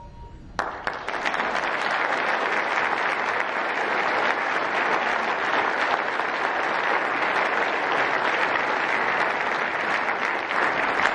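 Audience applauding at the end of a concert band piece: the band's last note fades, then clapping breaks out sharply about half a second in and continues steadily.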